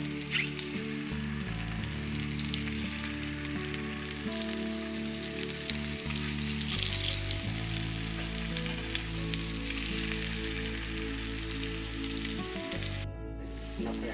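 Masala-coated boiled egg halves sizzling in a little oil on a tawa over a low flame: a steady sizzle full of fine crackles. The sizzle's hiss drops out for a moment near the end.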